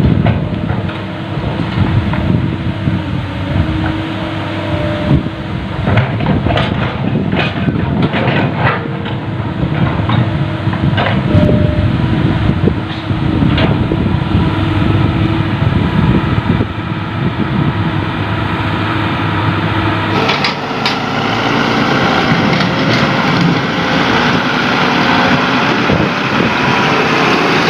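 Heavy diesel machinery of an excavator and dump truck running, with scattered knocks and clatter of rock being loaded into the truck's bed. About 20 seconds in, the sound changes abruptly and becomes brighter and hissier.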